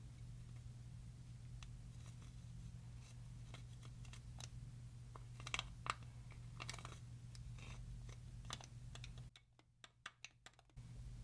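Clear slime being kneaded and folded by hand: scattered soft sticky clicks and pops over a low steady hum, the loudest pair about five and a half and six seconds in. The hum drops out for a moment near the end while a few more clicks sound.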